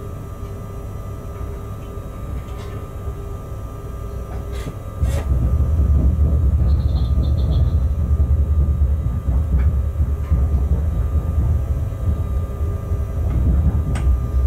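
Locomotive cab noise while shunting: a steady low rumble with a faint equipment hum, which steps up sharply louder about five seconds in and stays loud. A few sharp clicks, and a short run of quick high beeps a couple of seconds after the step.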